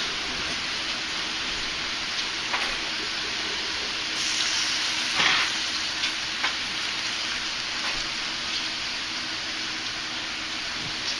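Food sizzling steadily in a frying pan, swelling louder for a moment about four seconds in, with a few sharp clicks of a utensil against the pan.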